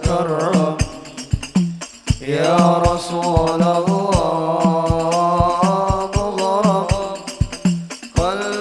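Islamic devotional sholawat song: a solo voice singing a wavering, ornamented melody over a steady beat of hand-drum percussion and a low sustained drone. The voice breaks off for a moment about two seconds in, then resumes.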